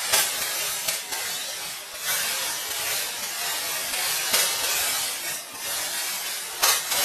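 Dry rice stalks rustling in a steady hiss during the hand harvest, with louder swishes at the start and about two, four and a half and six and a half seconds in.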